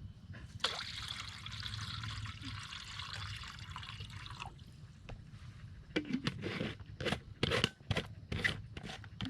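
Coconut water being poured into a pot in a steady stream for about four seconds, followed by a run of sharp knocks and clinks.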